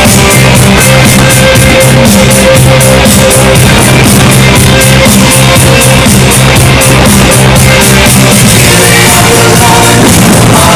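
Loud rock music with singing, guitar and drums over a fast, steady beat, most likely the fireworks show's soundtrack played over loudspeakers.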